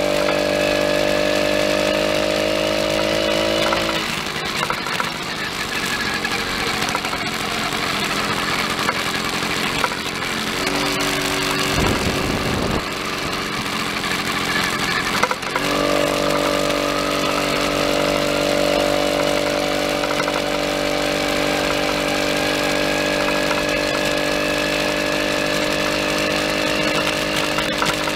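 Small engine of a motorized bicycle running under way at a steady pitch. About four seconds in, its clear note gives way to rougher, noisier sound, then comes back steady about fifteen seconds in.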